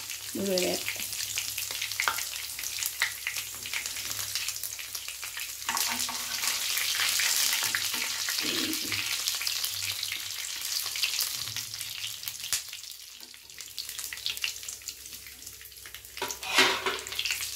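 Oil sizzling and crackling in a non-stick frying pan as crushed kayyonni (false daisy) and tulsi leaves fry in it, with a spoon stirring and scraping through the pan. The oil is boiling to cook the herbs down for a medicated hair oil. The sizzle is loudest around the middle and eases off near the end.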